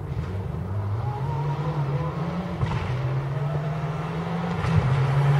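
Mitsubishi Lancer Evolution X rally car's turbocharged four-cylinder engine running hard as the car approaches on a gravel stage. The engine note rises about a second in, dips around three seconds, and grows louder near the end as the car comes closer.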